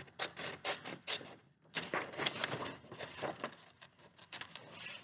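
Scissors snipping through construction paper in a quick run of cuts, with a short pause about a second and a half in before the snipping resumes.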